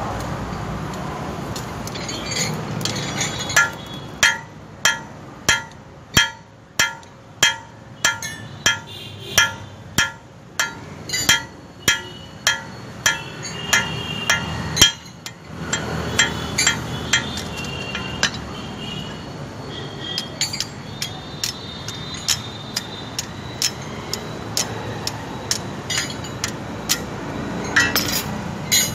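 Hand hammer striking steel on an anvil, forging tongs from 12 mm square stock: a steady run of heavy, ringing blows about one and a half a second, then lighter, less regular taps from about halfway through.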